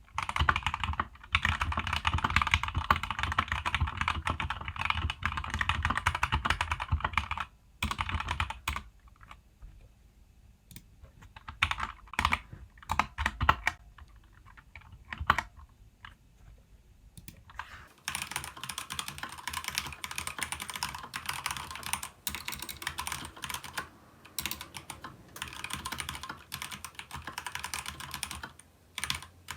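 Fast typing on a Keychron K2v2 mechanical keyboard with stock Gateron Red linear switches, double-shot ABS keycaps and a foam-modded plastic case: a rapid stream of key clacks. It thins to scattered keystrokes with pauses midway, then resumes steadily about 18 seconds in with a brighter, thinner tone.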